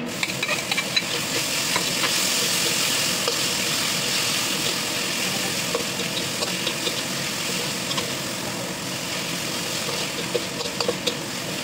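Diced meat sizzling in a hot stainless steel wok as it is tipped in and stir-fried. The sizzle swells as the meat goes in at the start, with scattered clicks and scrapes from the metal spatula against the wok.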